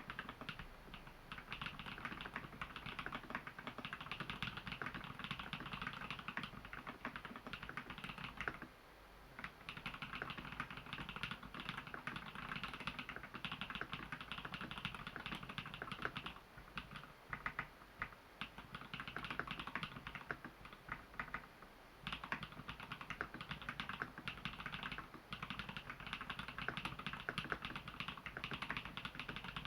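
Typing on a custom mechanical keyboard with Holy Panda tactile switches lubed with Krytox grease and filmed, in an XO v3 case dampened with Thinsulate. The keystrokes come fast and dense, break off briefly a little before 9 s, slow to separate presses from about 16 to 22 s, then run fast again.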